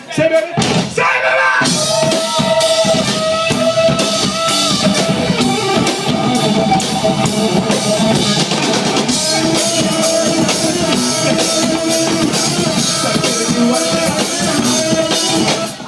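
Live rock band playing: a drum kit keeps a fast, busy beat under electric guitar and bass.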